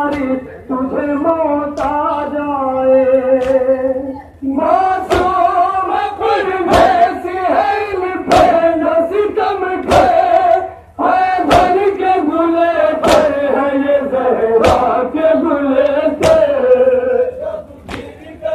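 Men's voices chanting a noha, a Shia mourning lament, together in a drawn-out melody. From about five seconds in, sharp slaps of chest-beating (matam) keep time, about one every second and a half.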